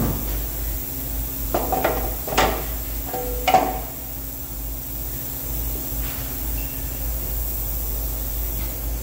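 Metal clanks as a round sheet-metal top cover is set down onto a vertical electric motor: a few sharp knocks that ring briefly, the loudest about three and a half seconds in. A steady low hum runs underneath.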